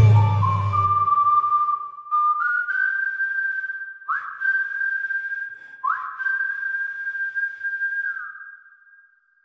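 End of a song: the band drops out, leaving a single high, thin whistle-like tone. It slides sharply up into a held note twice, then fades away.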